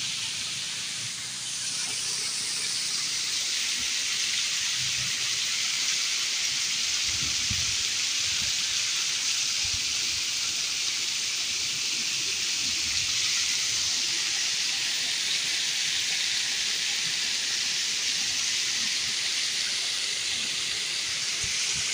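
Steady hiss of river water flowing and rushing over rocks.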